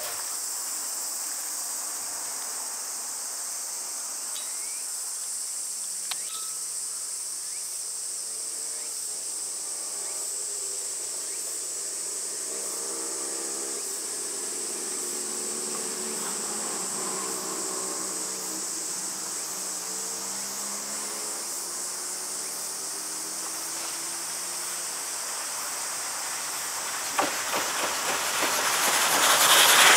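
Insects calling in a steady high-pitched drone. In the last few seconds the C12 66 steam locomotive approaches along the track, its sound growing louder.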